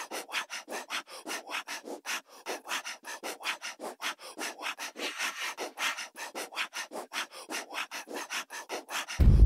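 Rhythmic rasping, about five evenly spaced strokes a second. Loud music with deep bass cuts in just before the end.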